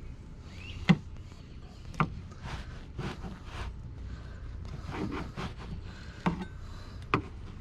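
A fresh-baked crusty French bread loaf being handled and pulled apart: scratchy crackling rustles from the crust, with four sharp knocks.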